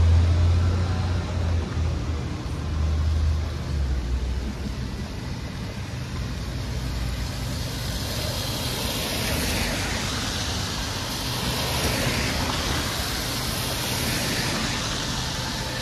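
Road traffic on a wet street: a low engine rumble in the first few seconds, then cars passing with the hiss of tyres on wet pavement, swelling from about halfway through.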